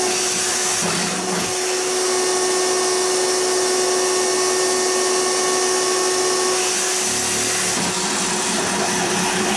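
Small electric power tool cutting fiberglass, running with a steady high whine, its tone shifting slightly about seven seconds in.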